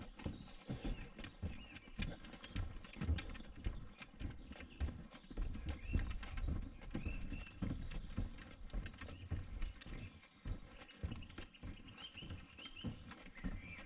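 Footsteps walking along a wooden boardwalk covered in wire mesh, a steady run of dull thumps and small clicks at walking pace.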